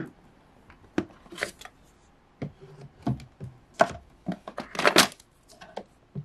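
Hair-product bottles and hair tools knocking and clattering as a hand rummages through a plastic bin in a dresser drawer: a string of irregular clicks and knocks, loudest about five seconds in.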